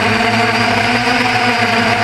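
DJI Phantom 1 quadcopter's motors and propellers running with a steady, multi-toned hum.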